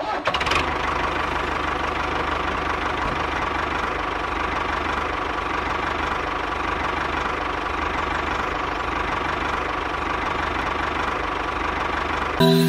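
Small electric motor of a homemade model machine running steadily, with a faint steady whine.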